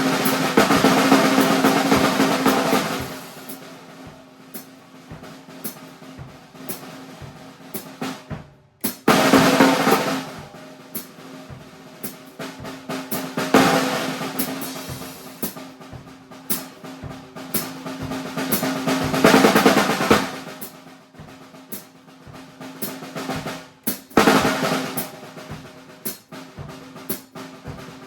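Acoustic drum kit played as a solo improvisation. Loud snare rolls and busy fills swell up every few seconds, with quieter, sparser strokes between them.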